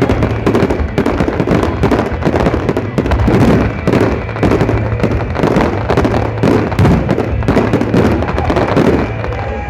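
Dense barrage of fireworks going off, many booms and crackling reports packed close together with hardly a gap, over a continuous low rumble.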